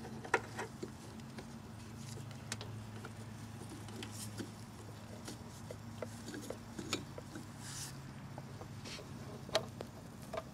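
Scattered light clicks, taps and rubbing of plastic and rubber parts under gloved hands as the headlight bulb socket is handled and turned, over a steady low hum.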